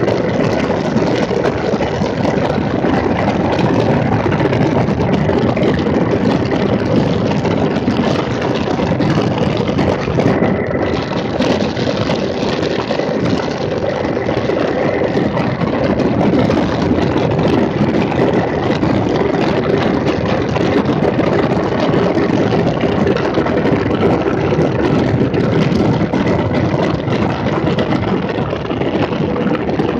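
2017 Triumph Bonneville T100's 900 cc parallel-twin engine running steadily while the motorcycle is ridden, mixed with a dense rush of wind noise on the bike-mounted microphone.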